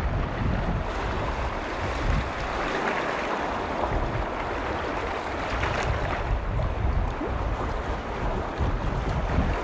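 Waves on Lake Vänern washing steadily, with wind buffeting the microphone in uneven low gusts.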